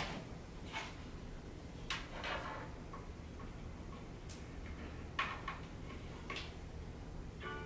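Light, scattered clicks and taps, about six over several seconds, as a small crafting hot glue gun is handled and worked against a PVC tube, over a faint steady low hum.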